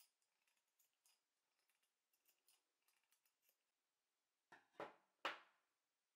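Fabric shears making a run of small, quiet snips as they clip the seam allowance of a sewn fabric leaf. Near the end come three louder handling sounds, the last the loudest.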